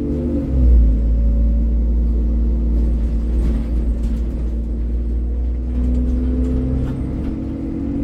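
ADL Enviro 400 double-decker bus under way, heard from inside: a heavy low rumble with a droning engine tone that slides in pitch at the start and shifts again near the end, and a few light rattles in the middle.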